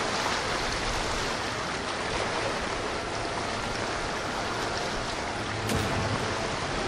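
Steady rushing wash of water and engine noise from a Riva Domino 88 motor yacht passing close by.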